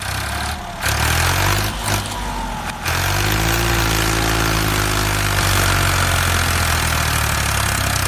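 A motor running, uneven for about the first three seconds, then settling into a steady run.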